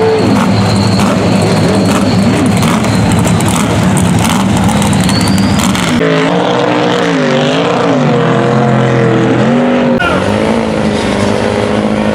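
Big mud trucks' engines running loud and revving, the pitch swinging up and down, with the sound changing abruptly about six and ten seconds in.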